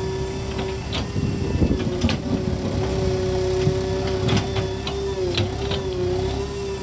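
JCB 3DX backhoe loader's diesel engine running under load with a steady hum as the backhoe bucket digs into stony soil. Scattered knocks and scrapes of stones and soil against the bucket.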